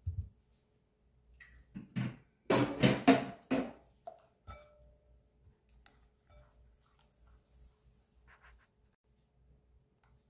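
Kitchen cookware clatter: a dull thump, then a quick cluster of hard knocks and clinks about two to four seconds in, as a saucepan and glass mixing bowl are handled, followed by faint stirring of batter with a silicone spatula in the glass bowl.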